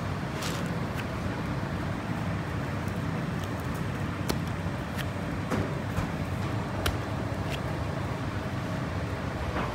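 A steady low rumble of machinery or traffic, with scattered light clicks and taps over it.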